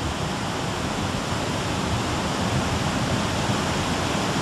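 Floodwater rushing past in a steady, even wash of noise.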